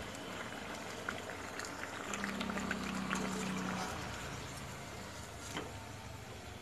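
Battered eggplant fritters (baigani) sizzling in hot oil in a steel kadai, a steady hiss with scattered crackles. The sizzle dies down toward the end as the fritters are lifted out with a wire skimmer.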